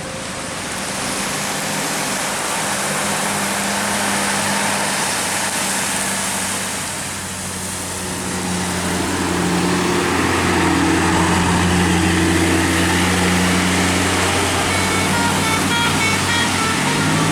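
Large tour bus running with a hissy rush of road and traffic noise. From about halfway a steady low diesel engine hum comes up, and near the end a few short stepped notes of a musical telolet horn begin.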